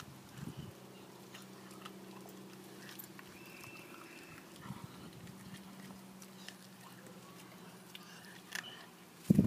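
A puppy gnawing on a bone, with faint scattered crunching clicks over a steady low hum. Near the end comes a short, loud, low burst.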